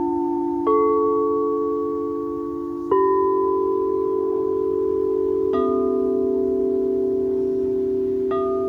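Singing bowls struck one after another, four strikes a few seconds apart. Each rings on long and overlaps the last, at different pitches.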